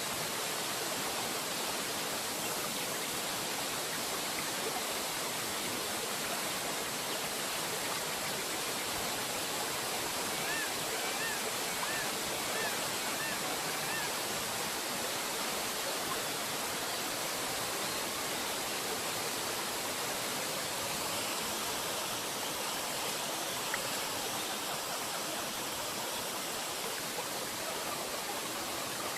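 Waterfall rushing steadily, an unbroken hiss of falling water. About ten seconds in, a bird calls a short run of about six repeated notes.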